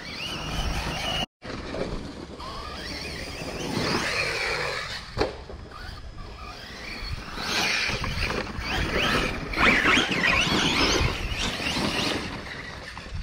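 Electric RC basher trucks being driven over dirt: their motors whine, rising and falling in pitch as they speed up and slow down, over the noise of tyres on loose dirt. It is loudest in the second half.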